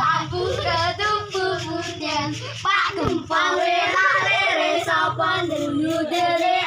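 Several children singing a song together, the phrases broken by short pauses.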